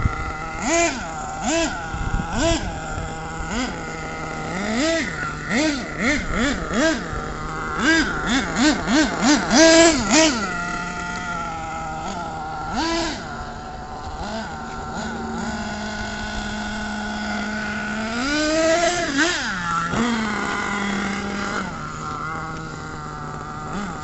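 Radio-controlled car's motor revving in quick short bursts, its pitch jumping up and falling back many times in a row. It then holds a steadier pitch, with one longer rise and fall near the end.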